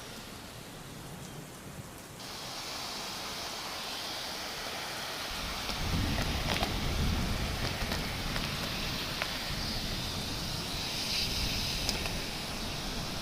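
Steady rain with a low roll of thunder building about five seconds in.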